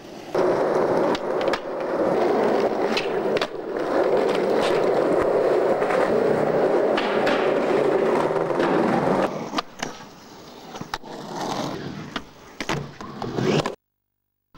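Skateboard wheels rolling over pavement: a loud, steady rolling rumble for about nine seconds. After that come sharp clacks and knocks of the board hitting the ground. The sound cuts out briefly near the end.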